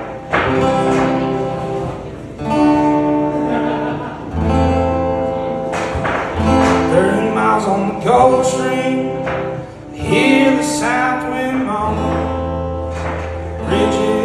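Acoustic guitar strumming a run of held chords, changing about every two seconds, as the intro to a song. A melody line that bends in pitch runs over the middle few seconds.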